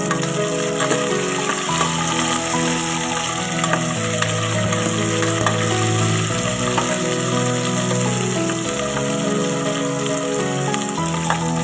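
Food frying in hot oil in a pan, a steady sizzle with scattered small pops, under background music of held instrumental notes that change every second or so.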